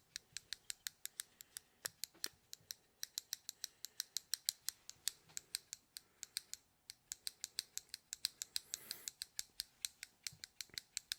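Plastic fidget toy rocked back and forth, giving a quick run of sharp clicks, about four or five a second, with a short pause about seven seconds in.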